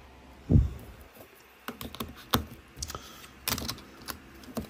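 Samsung GT-E1080T mobile phone being handled and put back together, battery and plastic back cover going on: a dull bump about half a second in, then a string of light, sharp plastic clicks and taps.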